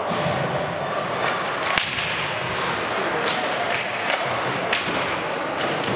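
Ice hockey in play: skates scraping the ice amid a steady arena hubbub, with several sharp clacks of sticks and puck, the loudest just under two seconds in.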